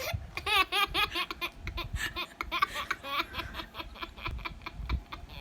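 Baby laughing hysterically in bursts of short, high-pitched giggles.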